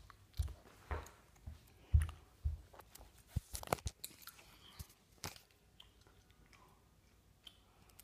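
Handheld phone being moved around and covered, its microphone picking up irregular soft thumps and rubbing, then a few sharp clicks and scrapes about three to five seconds in, fading to faint rustle near the end.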